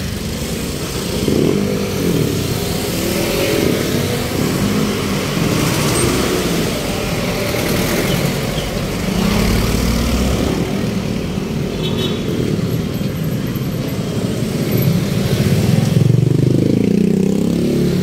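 Motor vehicle engines and road traffic running steadily, with constant road noise. The engine pitch rises and falls now and then, most clearly near the end.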